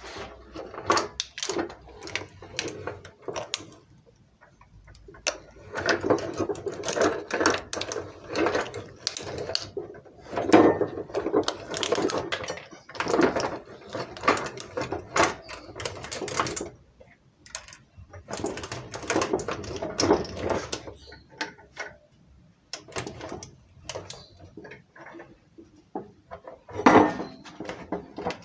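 Electric meat grinder crushing objects: irregular crunching and clicking in bursts, densest for several seconds in the middle, with quieter gaps between.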